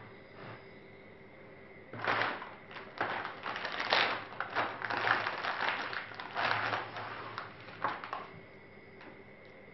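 Hands working on a Sony Vaio E Series laptop's plastic case during disassembly: a dense run of clicks, taps and scrapes that starts about two seconds in and lasts about six seconds.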